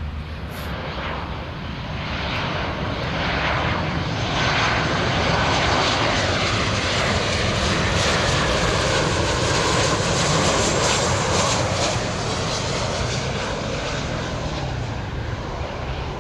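Jet airliner's engines passing close by: a steady roar that swells to its loudest about halfway through and then eases off, with an engine whine that falls in pitch as the aircraft goes by.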